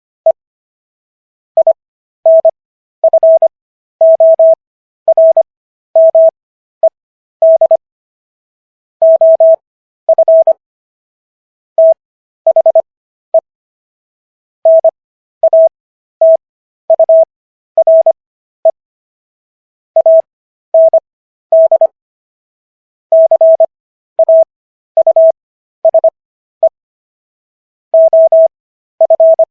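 Morse code practice tone: a single pure beep keyed on and off in quick clusters of short and long elements, with longer silent gaps between letters and words. Letters are sent fast with stretched Farnsworth spacing between them, for 15 words per minute overall at 25 wpm character speed, spelling out the text of the US Constitution's Sixth Amendment.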